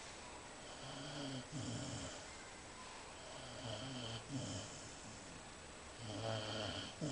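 Golden Retriever snoring in deep sleep: slow, rhythmic snores, about three breaths, each drawn in and let out with a low rattle.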